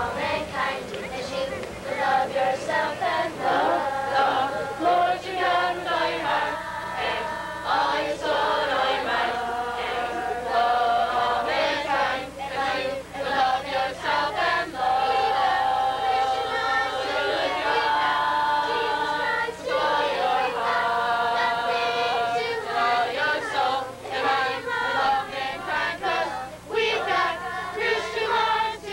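A group of children and teenagers singing a song together in chorus.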